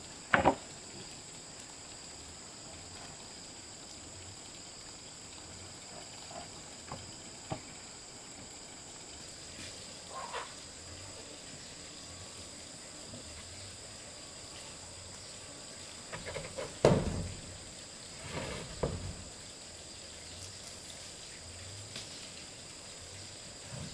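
Steady high-pitched insect chirring, with a few scattered knocks and clatters; the loudest is a clatter about 17 seconds in.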